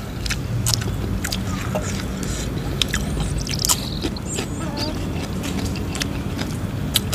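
Mouth sounds of people eating with their hands: chewing, with scattered short clicks and smacks, over a steady low rumble.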